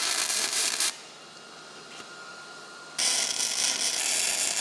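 Wire-feed welding arc on steel square tube, a dense crackling hiss. One weld lasts about a second, then it goes quiet. A second weld strikes about three seconds in and keeps going.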